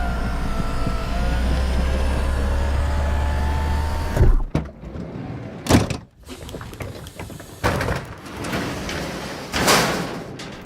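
A string of door sound effects. A motorized door or window runs with a steady low hum and a faint falling whine, then stops with a clunk about four seconds in. After it come several separate knocks, latch clicks and door thuds.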